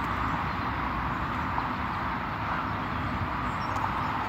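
Steady roar of road traffic, an even hiss-like rumble with no single event standing out.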